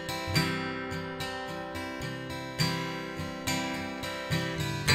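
Background music: an acoustic guitar strumming chords, with a fresh strum every second or so ringing on between.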